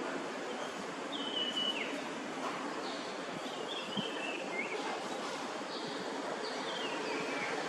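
Steady outdoor wind-like hiss. Over it a bird gives thin, high whistled calls about three times, each stepping down in pitch as it ends.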